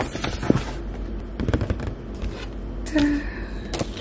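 Paper shopping bag and the non-woven dust bag inside it rustling and crinkling as they are handled, in irregular crackles. A short squeak-like tone comes about three seconds in.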